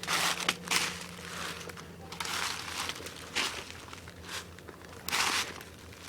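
Footsteps crunching through dry leaf litter and brush, an uneven step about every second.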